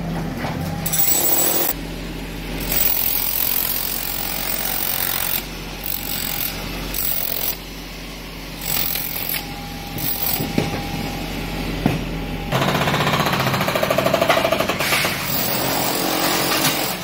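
Concrete being broken up by a mini excavator's hydraulic breaker and a handheld electric demolition hammer, striking in rapid stop-start bursts over the excavator's engine running. About three-quarters of the way through, the hammering becomes continuous and fast for a few seconds.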